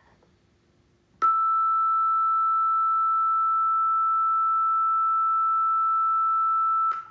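Steady high-pitched electronic tone, keyed on by a Morse code key and held for a single long press of nearly six seconds, with a click as the key closes about a second in and another as it opens near the end.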